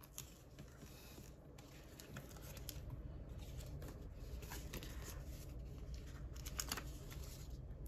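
Paper labels and envelopes being handled: rustling and crinkling with scattered small clicks and taps, a little busier from about two seconds in.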